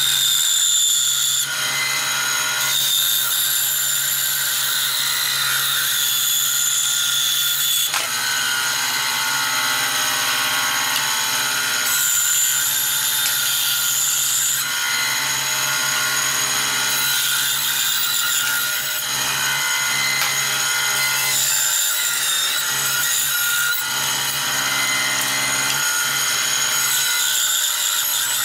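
Benchtop bandsaw running steadily, its blade cutting slowly along a curved line through a thick block of dense oak. The pitch and grain of the cutting noise shift every few seconds as the work is fed and turned.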